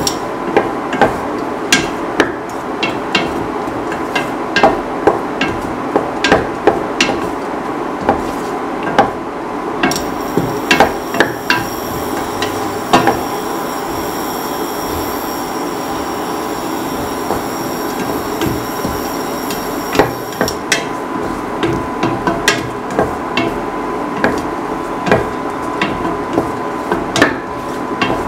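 Chopped onion, shallots, garlic and ginger sizzling in oil in a metal pan, while a spatula stirs them, scraping and knocking against the pan at irregular intervals, about one to three knocks a second.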